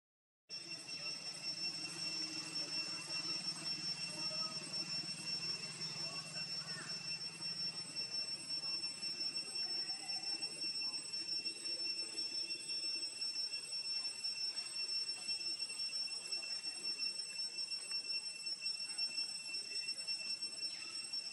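Steady high-pitched insect drone, holding two even tones, starting abruptly about half a second in, with a faint low hum underneath for the first several seconds.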